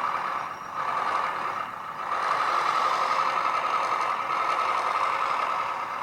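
Simulated diesel engine sound from the sound module of a radio-controlled skid-steer loader, played through its small speaker. It runs steadily after the start-up, with two brief dips near the beginning.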